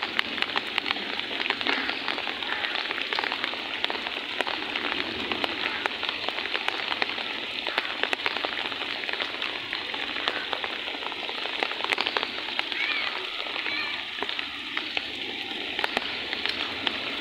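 Heavy rain falling on flooded, muddy ground and standing water: a steady hiss of rain with many small drop splashes.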